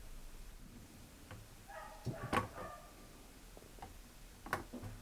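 Faint handling noises at a workbench: a few light clicks and knocks. The loudest comes about two and a half seconds in, with a brief ringing just before it, and two more follow near the end.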